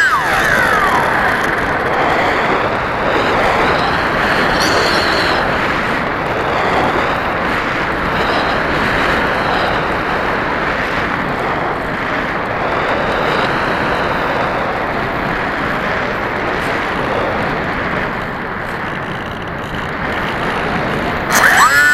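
Wind rushing over the onboard microphone of a HobbyKing Bixler 1.1 RC foam plane gliding with its brushless outrunner motor throttled back. The motor's high whine drops away at the start, and it spins sharply back up to a high whine just before the end.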